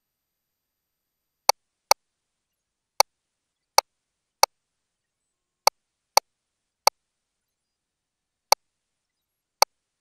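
Ten short, sharp clicks at uneven intervals against dead silence.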